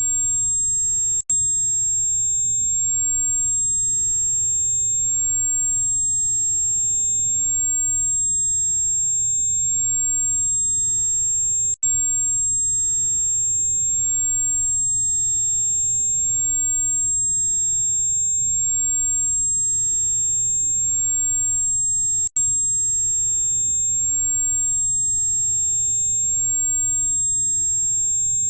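Steady, very high-pitched electronic tone of the kind played for tinnitus relief, with fainter tones above and below it and a faint low hum. It cuts out for an instant three times, about every ten and a half seconds, as the loop restarts.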